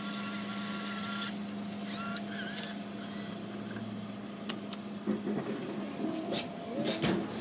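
Coca-Cola vending machine's mechanism motor running with a steady hum, with clicks and knocks in the last couple of seconds.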